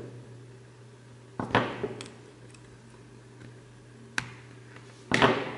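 Handling clicks of a micro USB cable and Lightning adapter being unplugged and plugged back in: a handful of separate sharp clicks and short scrapes, over a faint steady low hum.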